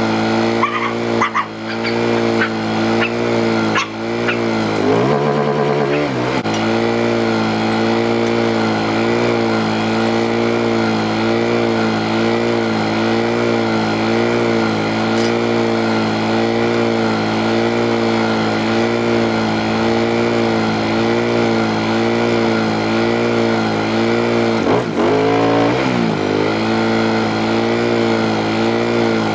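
Portable generator's small engine running steadily. Its pitch dips and recovers briefly twice, about five seconds in and again near the end.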